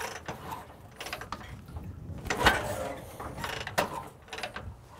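1969 Harley-Davidson XLCH Sportster's magneto-ignition Ironhead V-twin being kick-started: the kick lever and engine turning over give sharp mechanical clacks and a ratcheting clatter, loudest about halfway through. The engine does not catch, as is usual for these hard-starting magneto kickstart-only Sportsters.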